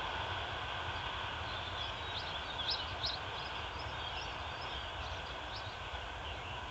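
Steady rumble of a passenger train running away into the distance, slowly fading. A few short bird chirps come about two to three and a half seconds in.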